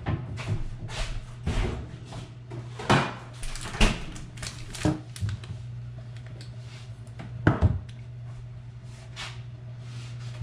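Refrigerator door opened and shut and food packages taken out and set on a countertop: a series of separate knocks and clatters, the strongest about 3, 4 and 7.5 seconds in, over a steady low hum.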